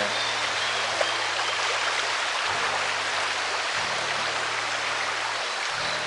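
Fast-flowing, clear forest stream rushing steadily over its rocky bed.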